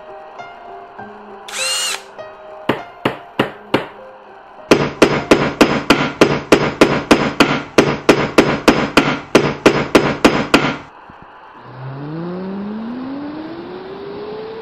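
Cartoon sound effects: a brief squeak, a few sharp clicks, then a fast run of loud hammer-like knocks, about four a second for some six seconds, stopping suddenly. Near the end comes a rising whine, like a machine spinning up.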